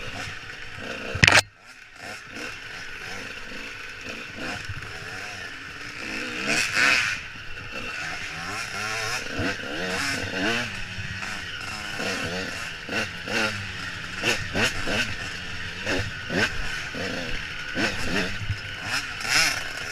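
Dirt bike engine running on a trail ride, the revs rising and falling with the throttle, with wind noise on a helmet-mounted microphone. A sharp, loud knock about a second in.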